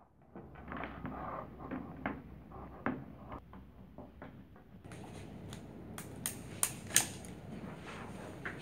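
Clicks and knocks of plastic electronic parts and wires being handled and plugged together on a wooden table, with a few sharp clicks about six to seven seconds in.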